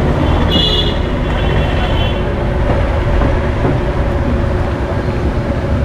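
Kachoris deep-frying in a large karahi of oil over a gas burner: a steady low roar with the hiss of sizzling oil. A short high-pitched tone sounds about half a second in.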